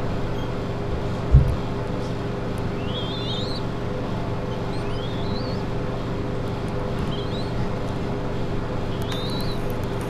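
A steady low mechanical hum runs throughout. A dull thump comes about a second in, and faint, high, rising bird chirps come four times, a couple of seconds apart.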